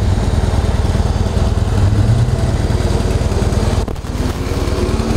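The 2013 Harley-Davidson Heritage Softail Classic's 103 air-cooled V-twin idling through its factory exhaust, a steady run of rapid low pulses. The sound dips briefly about four seconds in.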